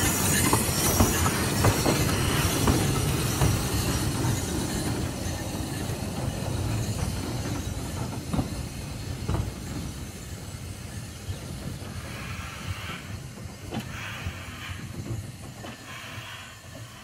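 Narrow-gauge steam locomotive pulling away along the track: a low rumble with scattered clanks and wheel clicks that grows steadily fainter as it draws off. In the last few seconds there are short bursts of steam hiss, about one a second.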